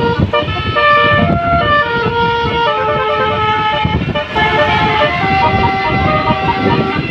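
Telolet basuri multi-tone bus horn playing a quick melody: a string of held tones that step from one pitch to the next every fraction of a second, over a steady low noise.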